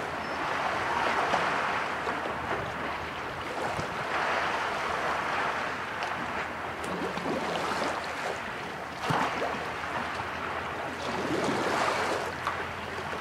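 Small lake waves lapping and splashing against the shore, swelling every three to four seconds.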